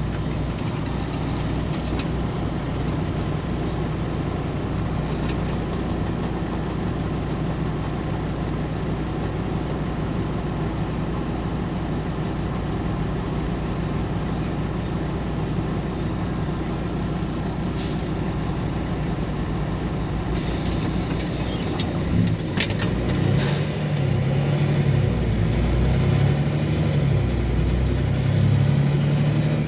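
LiAZ 5292.22 city bus heard from inside the cabin: the diesel engine idles at a stop, a few short hisses of compressed air come around two-thirds of the way in, and then the engine pulls harder and louder, its pitch stepping up and down as the bus moves off.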